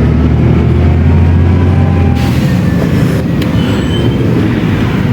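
Mercedes-Benz O500U city bus engine and ZF automatic driveline running under way with a strong low drone. About two seconds in, the drone eases, a hiss joins it, and a few faint high whines come and go.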